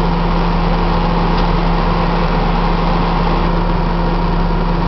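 Heavy diesel engines of a Caterpillar 330B excavator and a Caterpillar articulated haul truck running in a steady drone with a constant low hum, while the excavator swings its boom back down to dig.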